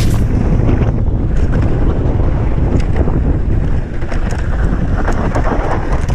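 Wind buffeting the microphone of a camera moving along on an enduro ride: a loud, dense low rumble, with scattered rattling clicks from the bike over rough ground.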